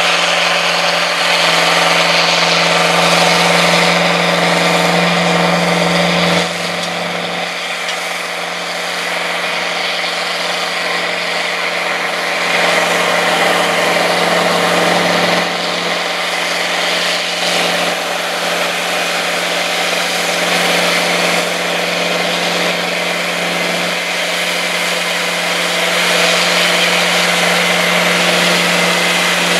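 Two Massey Ferguson four-wheel-drive tractors, a 5200 and a 4880, with their diesel engines running hard under heavy load while pulling a 20-bottom plow. The engines make a steady drone, which dips slightly about six seconds in and swells again later.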